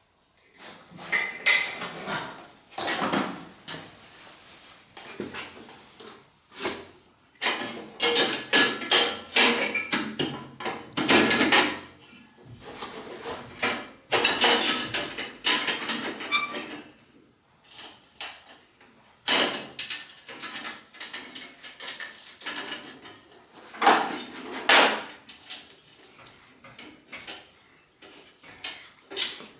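Irregular metallic clanks, clicks and scrapes of hand work on an ATV exhaust, its springs being fitted back in place. The clanks come in uneven clusters with short pauses between them.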